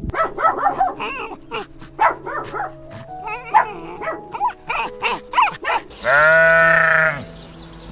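Puppies yipping in short bursts over background music, then a sheep gives one loud bleat lasting about a second, near the end.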